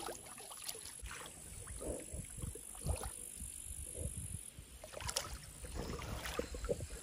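Pond water splashing and sloshing in irregular bursts as a hooked carp thrashes at the surface and a landing net is swept through the water and lifted around it.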